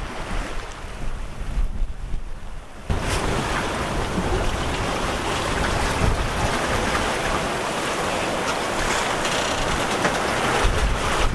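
Wind buffeting the microphone over the rush of choppy sea around a sailing yacht under way. About three seconds in the sound changes abruptly to a louder, steady rush of wind and water.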